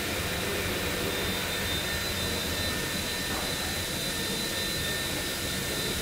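Steady even background noise with a faint high whine running through it, like a fan or machine running.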